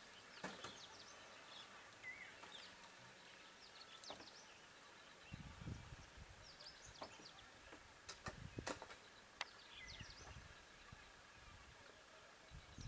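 Faint outdoor ambience: scattered bird chirps, a high steady buzz that comes and goes, and a few soft knocks and low thuds.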